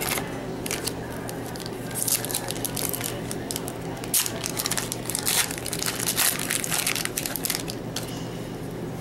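Foil wrapper of a 2012-13 Upper Deck Black Diamond hockey card pack being torn open by hand: a run of sharp crinkling and tearing crackles, busiest in the middle few seconds.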